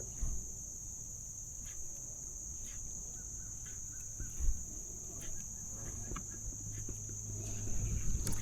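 Steady high-pitched chorus of insects droning without a break, with a low hum underneath, scattered faint clicks and a soft thump about four and a half seconds in.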